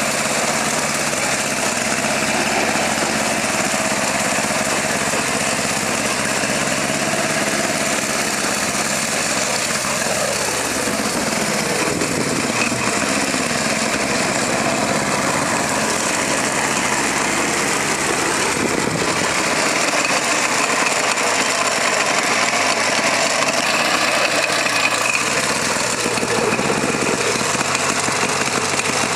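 Engine of a homemade mini-tractor running steadily as the tractor drives along, its pitch sliding as the revs change about a third of the way in and again past the middle, and getting a little louder in the second half.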